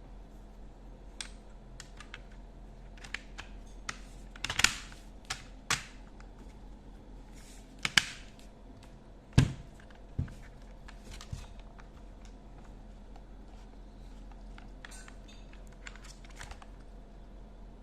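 Mechanical keyboard keys pressed one at a time at an irregular pace, with sharp clacks and a few louder strikes rather than continuous typing.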